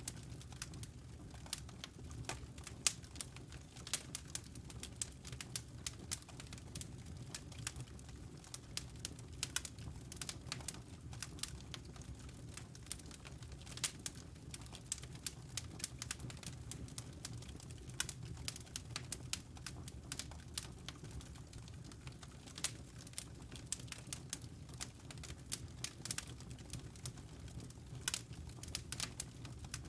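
Fireplace fire crackling: irregular pops and snaps, several a second, over a steady low rumble.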